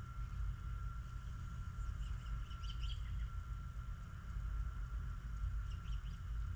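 Birds chirping faintly, a cluster of short calls about two to three seconds in and a couple more near the end, over a steady low rumble and a faint steady whine.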